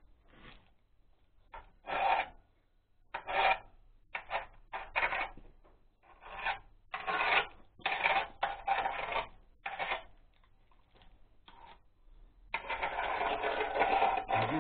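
Scraping strokes of a hand tool on the grease-covered gearbox casing of an Oka walk-behind tractor. The strokes are short and uneven, with one longer continuous scrape near the end.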